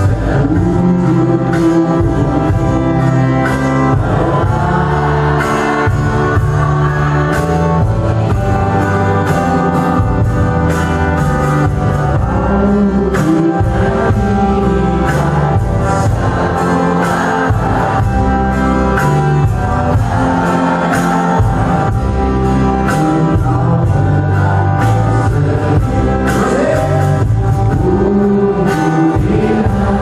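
A singer performing a song in Indonesian into a microphone over musical accompaniment with a steady beat.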